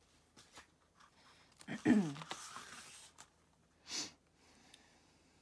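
Glossy pages of an album photobook being handled and turned, with light paper rustles and a short swish about four seconds in. The loudest sound is a brief vocal 'mm' with a falling pitch about two seconds in.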